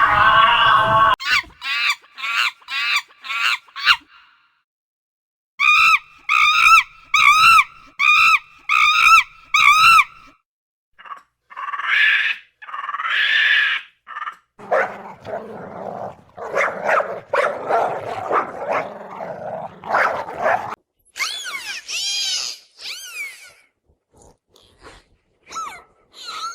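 A dog barking and yipping in several runs of short, evenly spaced calls, about two a second, broken by pauses. In the middle comes a longer, rougher stretch, and near the end some high gliding whines.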